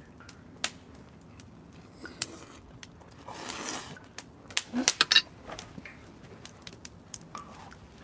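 Scattered light clicks and taps of metal tongs and cutlery against a plate, with a brief rustle a little past three seconds in and a quick cluster of sharper clicks about five seconds in.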